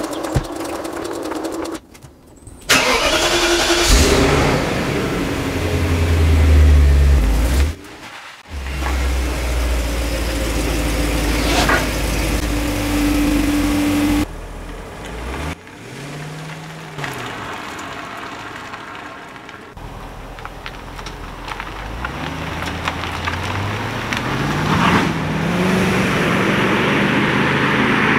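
BMW E38 740i's 4.4-litre M62TU V8 started from cold and running, in several cut-together shots. In the first half it runs with a steady deep note; in the second half its pitch rises and falls several times, climbing toward the end.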